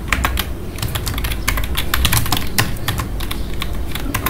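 Computer keyboard typing: an irregular run of quick key clicks, several a second.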